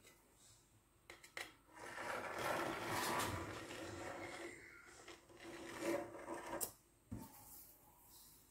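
Rasping, rubbing sounds from kitchen work, in two stretches, the first about three seconds long, with a few light knocks before and after.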